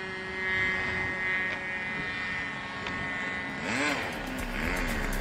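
Radio-controlled model airplane's motor buzzing steadily as the plane flies past, its pitch swinging up and down near the end.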